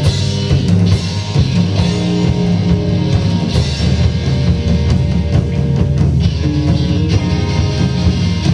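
Live rock band playing an instrumental passage: drum kit and electric guitars going steadily, with no singing.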